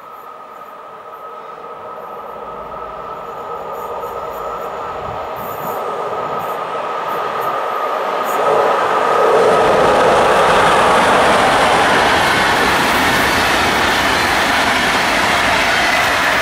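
DB class 110 electric locomotive hauling an Intercity train, approaching and passing close by. A steady high whine and the running noise grow louder as it nears, and from about halfway the wheels and coaches rolling past become loud and constant.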